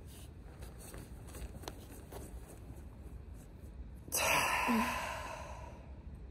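A person lets out a long, loud exhale about four seconds in, a sigh-like release after a held full breath in Wim Hof breathing, fading over a second or so and ending in a short voiced sound. Before it, only a faint low rumble.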